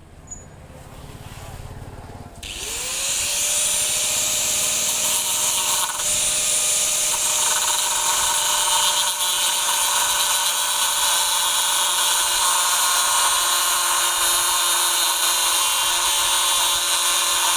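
Handheld electric power tool switching on about two seconds in, its motor winding up to speed and then running steadily at full speed.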